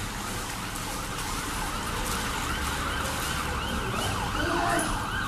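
An emergency vehicle siren in fast yelp mode, a rapid rising-and-falling wail repeating several times a second, growing louder toward the end.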